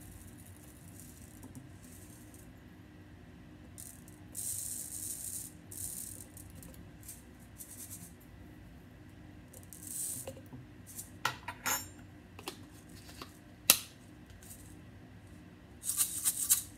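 Chia seeds spooned into a plastic medicine bottle, pattering in with a short hiss at each spoonful, several times. This is followed by a few small clicks and one sharp click. Near the end the bottle is shaken briefly as a seed shaker, a quick dense rattle.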